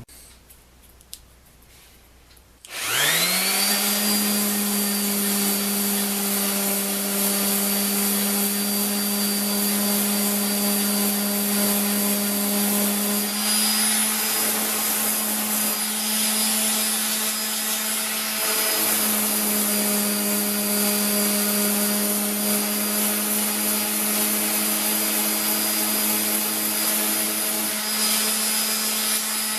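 A high-speed electric motor starts about three seconds in, spins up quickly to a steady whine and runs on, its pitch shifting slightly a couple of times.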